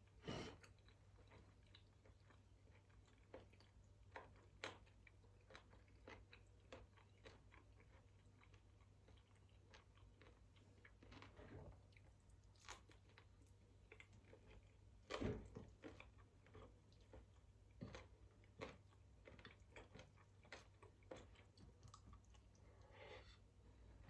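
Quiet close-up chewing and eating: soft mouth sounds broken by scattered short clicks, with a louder one about 15 seconds in, over a steady low hum.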